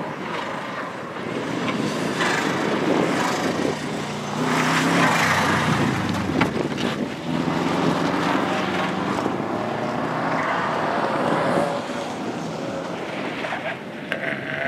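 Subaru Impreza's flat-four boxer engine revving hard as the car launches and drives a tight cone course, its pitch rising and falling repeatedly with the throttle and gear changes, loudest in the middle. Wind buffets the microphone.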